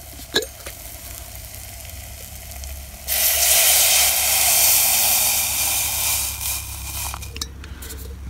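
Water poured from a stainless steel bottle into a hot pot of mushrooms frying in butter, rushing and sizzling loudly for about four seconds, starting about three seconds in and fading out. Before the pour, the pan sizzles faintly.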